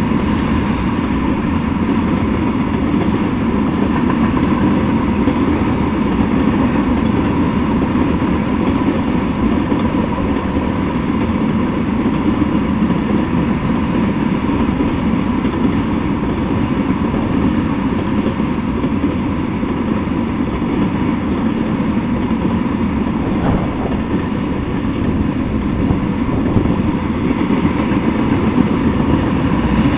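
Freight train of tank cars rolling past at a steady pace: the wheels on the rails make an even, continuous noise with no clear rhythm of rail-joint clicks.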